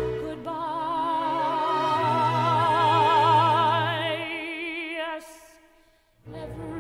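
Orchestral show-tune music with a woman singing one long held note with a wide vibrato. The music fades to near silence about five seconds in, then starts again shortly before the end.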